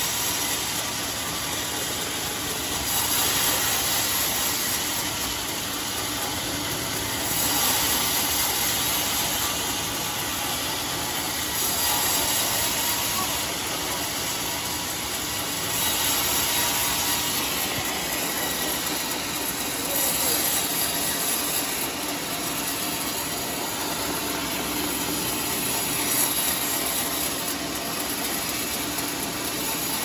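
Circular sawmill blade cutting through a large rain tree (trembesi) log: steady, noisy sawing that swells louder about every four seconds.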